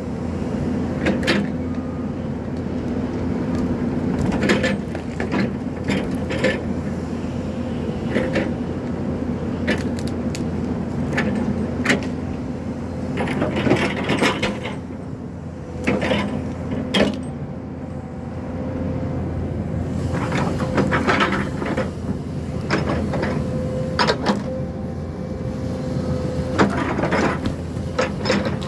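Crawler excavator's diesel engine running steadily under load, with frequent sharp cracks and knocks as it tears out brush and stumps.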